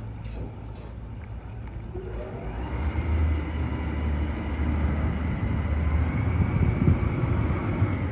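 Tour boat's engine throttling up: a low rumble grows louder about three seconds in with a rising whine, over the churn of the propeller wash.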